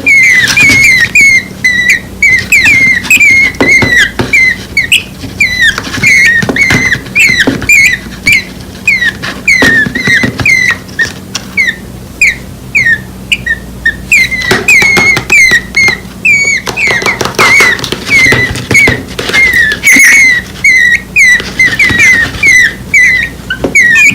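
Two nestling birds, less than a week old, giving rapid high begging chirps, several a second, calling for the parent bird; the calls thin out briefly about twelve seconds in.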